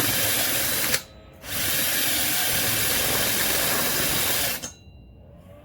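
Cordless drill running, boring a hole through a tube rail. It stops briefly about a second in, runs again for about three seconds, then stops near the end.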